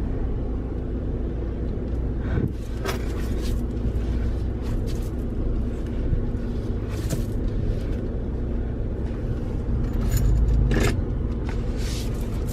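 Ford Raptor pickup's engine running at low speed while the truck is backed out, a steady low rumble that swells briefly about ten seconds in, with a few light clicks over it.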